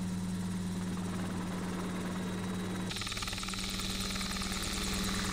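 Cicaré ultralight helicopter running in flight: a steady engine and rotor sound. About three seconds in, the sound turns brighter, with a fast, even beat of the rotor blades.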